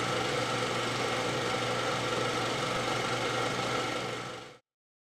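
A steady mechanical hum of constant pitch, like a small motor running, fading out quickly about four and a half seconds in.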